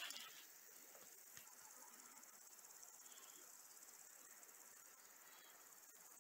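Near silence, with faint, steady high-pitched chirring of insects in the grass.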